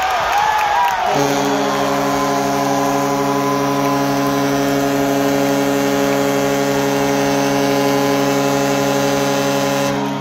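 Hockey arena goal horn sounding one long, steady blast of about nine seconds, starting about a second in, signalling a goal, over a cheering crowd.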